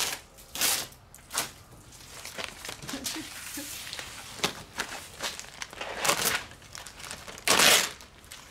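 Clear plastic stretch wrap crinkling and tearing as it is pulled off a butcher block countertop by hand, in several short bursts, the loudest near the end.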